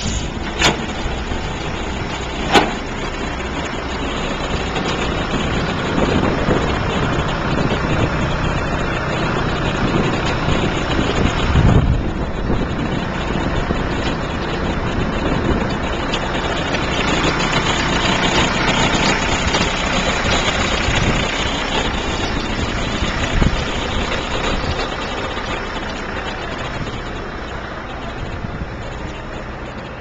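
Diesel engines of a trailer concrete pump and a ready-mix truck running steadily. Two sharp metallic clanks come in the first few seconds, and the engine noise fades somewhat near the end.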